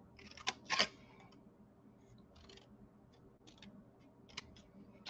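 Small scissors snipping through cardstock to cut a square out of a corner. Two louder snips come just under a second in, then a few fainter ones.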